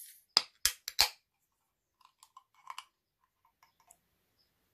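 Aluminium drink can (Arizona Grapeade) being opened: the tail of the opening hiss, then four quick sharp metallic clicks of the pull tab, followed by a few faint ticks.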